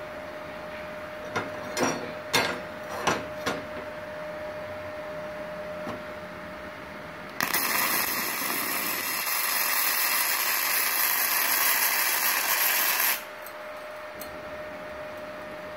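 Gasless MIG welding arc, flux-cored wire fed from a MultiPro MIG-MMA/TIG 160 AS-MZ inverter welder onto aluminium plate: a loud steady hiss for about six seconds from midway, cutting off sharply when the arc is stopped. A few short sharp sounds come earlier, between about one and a half and three and a half seconds in.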